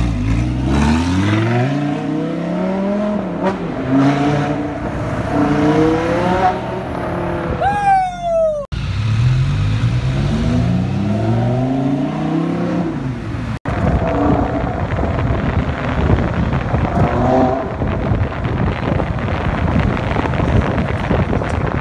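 Audi R8's V10 engine accelerating hard, its pitch climbing through each gear and dropping back at every upshift, in two runs broken by a cut. From about 14 seconds in, a steady rush of road and wind noise from a moving car takes over.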